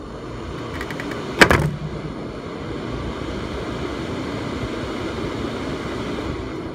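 Mitsubishi centrifugal bathroom exhaust fan running with a steady rush of air, rising over the first couple of seconds as it comes up to speed, then holding. A single sharp knock about a second and a half in.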